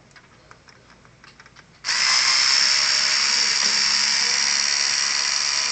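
Electric screwdriver starting suddenly about two seconds in and running steadily with a high whine, backing out one of the screws that hold the DVR's motherboard. A few faint light clicks come before it.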